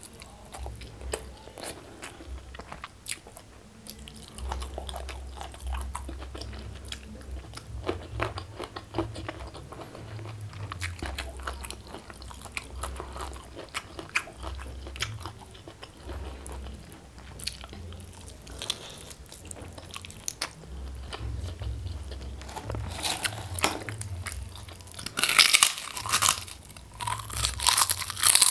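Close-miked chewing and wet mouth sounds of someone eating spicy chicken and rice by hand. Near the end come loud, rapid crunches as she bites into a crisp kerupuk cracker.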